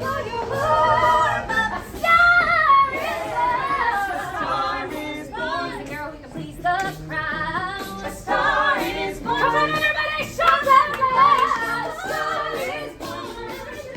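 Singing by several mostly female voices together, like a choir, with music.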